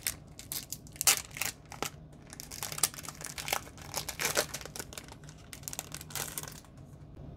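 Foil wrapper of a Pokémon trading card booster pack being torn open and peeled apart by hand: a rapid run of sharp crinkling crackles that dies down near the end.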